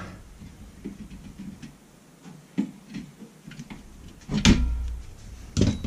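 Hands working on an air-conditioning unit on a workbench: scattered soft clicks and rattles, then two louder knocks about a second apart near the end.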